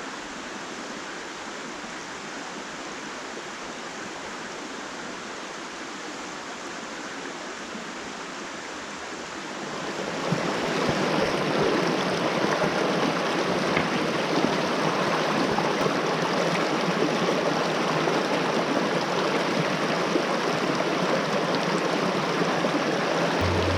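Small creek running over rocks, a steady rush of water that gets clearly louder about ten seconds in.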